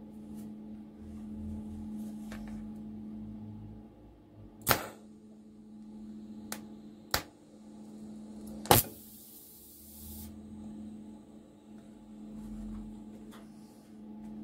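TIG welder tacking a stainless steel exhaust pipe: three sharp clicks, the last one the arc striking, followed by the arc's hiss for about a second and a half, over a steady low hum.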